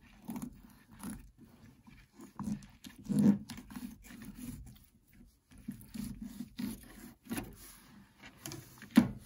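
Fillet knife sliding along a rainbow trout's spine, with faint irregular scraping and soft handling sounds on the cutting board, and a few sharp knocks, the loudest one near the end.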